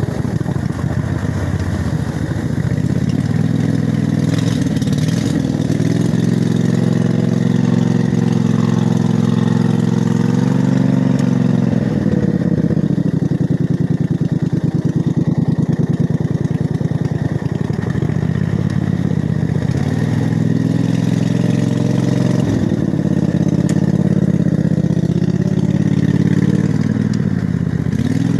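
Montgomery Ward riding garden tractor's engine running steadily while the tractor is driven through flooded mud, its pitch rising and falling now and then as it is worked.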